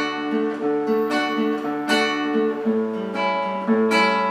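Acoustic guitar fingerpicked in a repeating folia de reis pattern: thumb bass note, index finger, two fingers together, index, then thumb. It plays a D major chord with its bass on the fourth string, then changes to A with its bass on the fifth string about two and a half seconds in.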